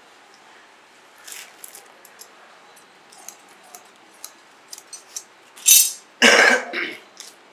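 Small clicks and crinkles of plastic film and scissors being handled, then two loud bursts of crinkling and rustling near the end as a sheet of shiny patch material is crumpled and moved.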